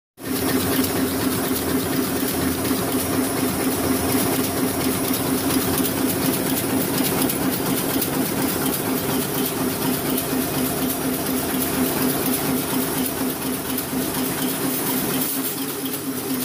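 Heidelberg Speedmaster SM 52-2 two-colour sheetfed offset press running at full speed: a steady mechanical din of dense, rapid ticking over a steady low hum.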